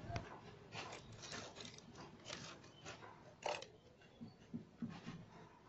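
Faint handling noises as a small telescope is lifted out of its moulded plastic carrying case: a string of short scrapes and clicks, the sharpest about three and a half seconds in, followed by a few soft low knocks.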